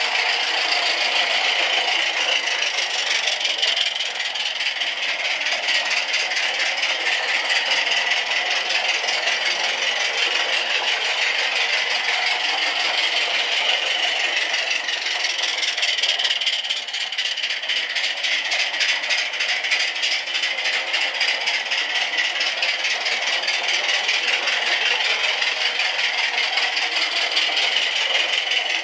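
Mamod gas-fired live-steam saddle tank locomotive running with a train of wagons: a rapid, steady steam exhaust hiss and chuff, with the wheels and wagons rattling on the track.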